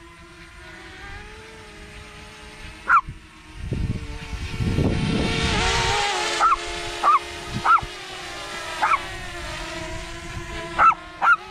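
DJI Mavic Mini drone's propellers humming steadily, the pitch dipping slightly now and then, while a dog barks at it about seven times in short single barks, mostly in the second half. About four seconds in, a rush of noise swells and fades over a couple of seconds.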